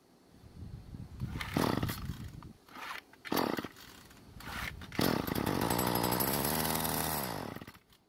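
Craftsman 32cc two-stroke string trimmer being pull-started: a few rope pulls, then about five seconds in the engine fires and runs for a couple of seconds before its speed drops and it dies. It runs only on a little fuel put into the air filter area, because its fuel lines are broken.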